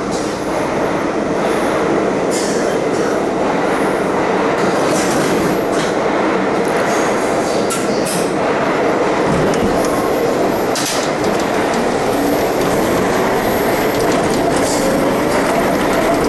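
R32 subway train standing at the platform with a steady running noise, then pulling out and picking up speed into the tunnel, its motor tone rising over the last few seconds. A few sharp clicks from the car are heard along the way.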